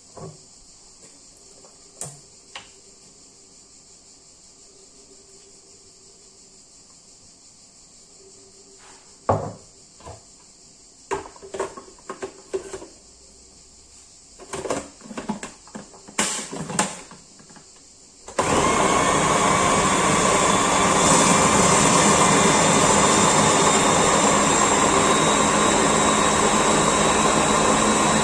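A few scattered clicks and knocks, then about two-thirds of the way in an electric food processor starts and runs steadily for about ten seconds, puréeing chopped tomatoes and olive oil. It cuts off abruptly at the very end.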